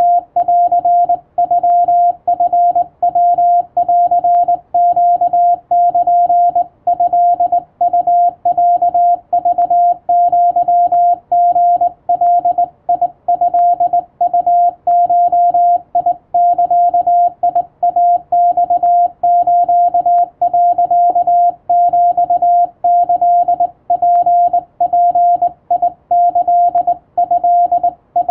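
Japanese (wabun) Morse code sent by hand on a straight key: one steady tone keyed on and off in dots and dashes at a brisk, even pace. The code spells out a message thanking subscribers.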